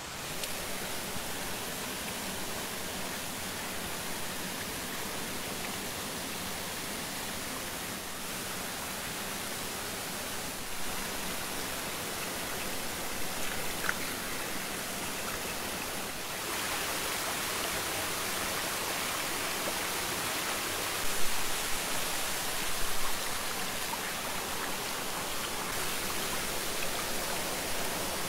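Steady rush of water flowing over rocks in a stream, growing louder and brighter a little past halfway through. A couple of short louder sounds stand out about three quarters of the way in.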